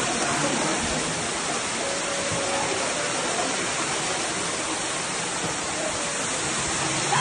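Steady rush of floodwater running, an even noise that does not change in level.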